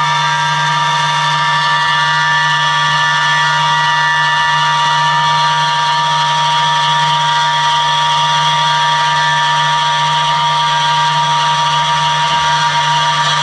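Electric guitar laid flat and run through effects pedals, holding a steady, dense drone of many layered sustained tones while its knobs are turned.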